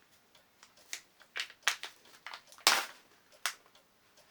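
Packaging being handled, giving about six sharp crackles and clicks, the loudest and longest a little past the middle.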